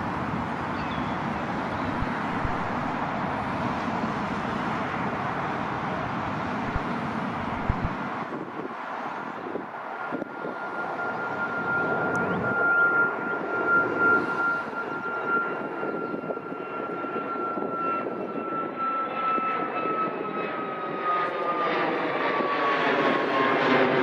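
Jet airliner engines passing close by: a steady broad roar, then a high whine that holds its pitch and drops slightly over the last few seconds as the aircraft goes past.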